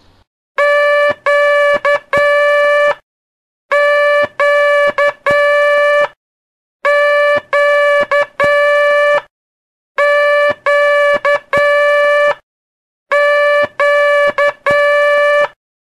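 Morse code letter Q (dah-dah-di-dah) keyed as a steady, buzzy beep tone, repeated five times with pauses between.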